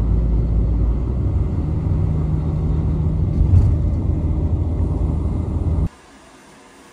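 Steady low rumble of a moving road vehicle heard from inside its cabin. It cuts off suddenly about six seconds in.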